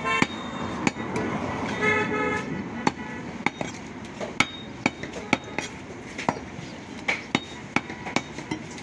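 Butcher's cleaver chopping beef on a wooden tree-trunk block: sharp, irregular chops about twice a second. A vehicle horn toots briefly at the very start and again about two seconds in.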